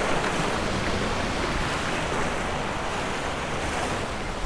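Steady wash of surf breaking against jetty rocks, with gusty wind rumbling on the microphone.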